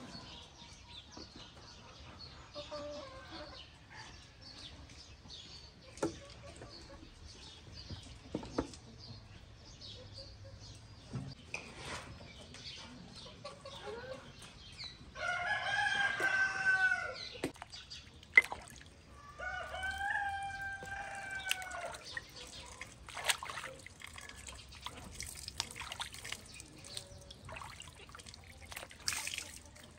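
A rooster crowing twice, a few seconds apart, about halfway through, over light splashing and dripping of vegetables being washed by hand in a basin of water.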